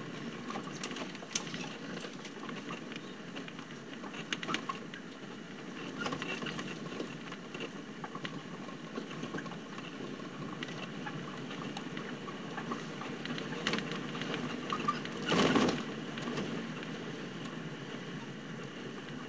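Open Land Rover game-drive vehicle driving over rough bush track: a steady run of engine and tyre noise with scattered squeaks, rattles and knocks from the body and suspension as it bumps along, and one heavier jolt about three-quarters of the way through.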